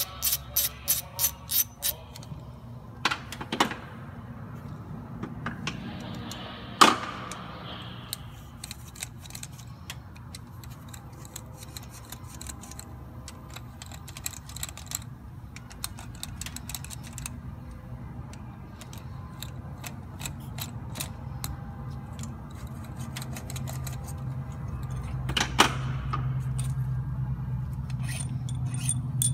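Hand tools working on a DT466 diesel's high-pressure oil rail: a ratchet clicks about four times a second for the first two seconds, then scattered metallic clinks and taps of tools and parts follow, over a low steady hum.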